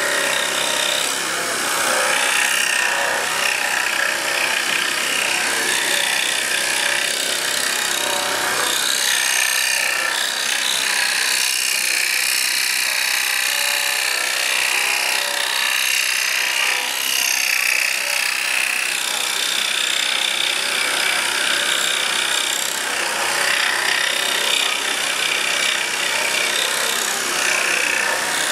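Pégas scroll saw running, its reciprocating blade cutting steadily through a thick wooden block. The result is an even rasping saw noise that shifts a little as the workpiece is turned along the curve.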